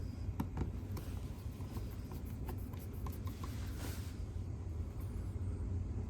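Scattered light clicks and a short scrape about four seconds in, from hands and tools working at the finished outlet's cover plate, over a steady low hum.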